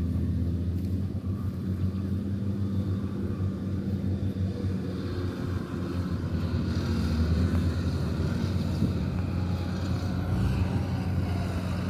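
Rice combine harvester's engine running steadily as the machine cuts through standing rice, a low, even drone heard across the field.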